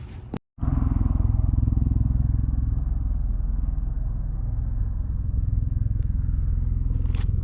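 Motor running steadily with a low rumble, starting just after a brief cut to silence.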